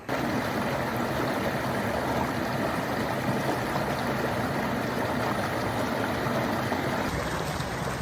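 Creek water rushing close by, a steady even rush that cuts in suddenly at the start.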